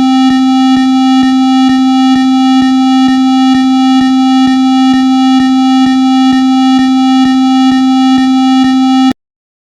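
Emergency alert attention tone: a loud, steady, low electronic buzz with many overtones and a faint click about twice a second. It cuts off suddenly near the end.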